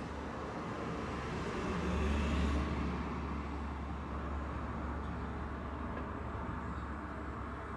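A box truck drives past on the street, louder for a moment about two seconds in, over a steady low hum of traffic.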